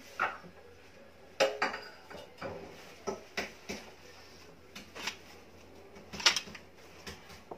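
A dozen or so irregular light clinks and knocks against a clay serving dish as hands spread torn pieces of flatbread across it, the loudest about six seconds in.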